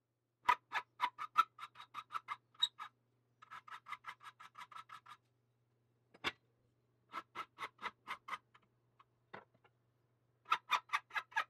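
Hand file rasping across a small metal piece clamped in a bench vise, in quick strokes about four a second, coming in several runs with short pauses between. The file is an old dull file freshly sharpened in acid, now cutting again.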